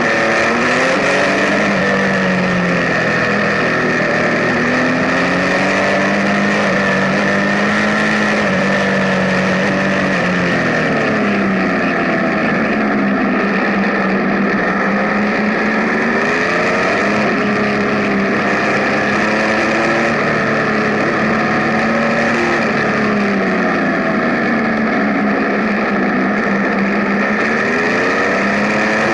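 Benelli TnT 1130 Café Racer's inline three-cylinder engine under way, its note climbing and dropping several times as the rider accelerates and changes gear, with wind rushing over the microphone.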